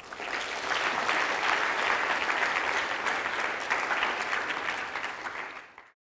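Audience applauding, the clapping swelling within the first second, holding steady, then cutting off abruptly near the end.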